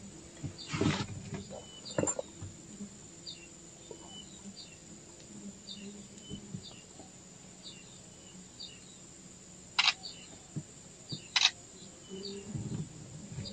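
Night-time chirping of small wild animals: a steady high-pitched drone with short chirps repeating about once or twice a second, under a low hum. A few sharp knocks cut in, the two loudest about two-thirds of the way through.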